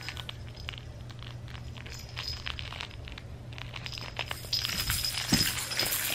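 Irregular soft clicks, clinks and rustles from a plush baby toy with plastic rings being handled and shaken, over a steady low hum.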